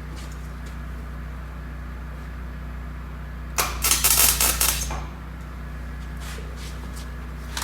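A tack weld on the steel truck frame: a loud crackling hiss starts sharply about three and a half seconds in and lasts about a second and a half, over a steady low hum.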